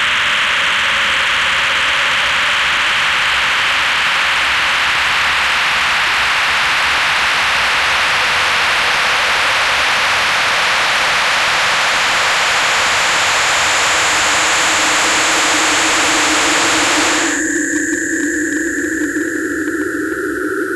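Harsh electronic noise music: a loud, steady wall of hiss centred in the upper-middle range, with a thin high tone joining about two-thirds of the way through. Near the end the wide hiss cuts off suddenly, leaving a few narrow droning bands.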